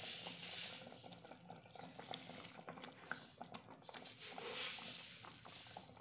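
Thick milk and rice pudding (payesh) simmering in a pan, its bubbles popping softly with many small pops over a faint hiss.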